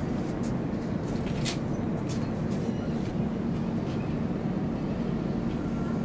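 Steady hum and rush of an LHB coach's air-conditioning exhaust, mixed with the running noise of the coach moving slowly, with a few faint clicks.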